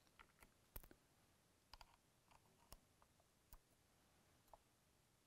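Faint, scattered small clicks of a brass .308 cartridge case being fitted into the shell holder of a Lyman E-ZEE Prime hand priming tool.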